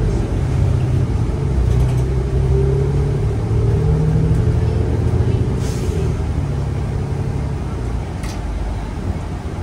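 New Flyer XN35 bus's Cummins Westport L9N natural-gas engine and drivetrain heard from inside the cabin while under way: a steady low drone whose pitch drifts up and down. It eases off a little in the last few seconds, with a couple of short rattles, one around the middle and one near the end.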